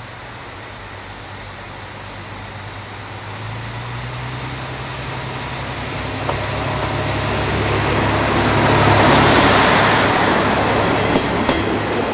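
Kamioka Railway diesel railcar 'Okuhida 1' running under power as it comes along the platform and passes close by. Its steady low engine drone grows louder until about three-quarters of the way through. A few sharp wheel clicks over rail joints come near the end.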